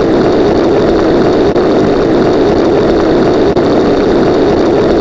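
A loud, steady, engine-like mechanical drone.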